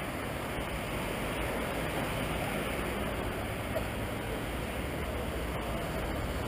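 Steady wash of road traffic from a busy multi-lane road, with no single vehicle standing out.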